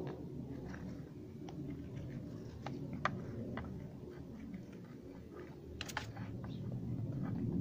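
Scattered light clicks and taps, sharpest about three seconds in and again near six seconds, over a low steady rumble.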